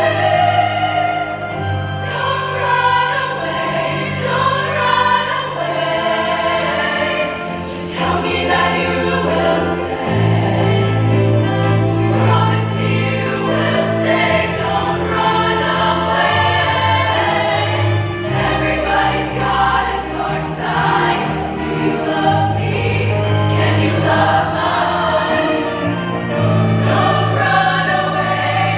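A women's show choir singing in harmony with a live backing band: held low bass notes sit under the voices, and there are occasional sharp hits.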